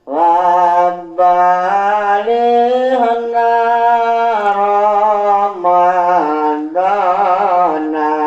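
Music: a slow single melodic line of long held notes, some with a slight waver, in phrases broken by short pauses.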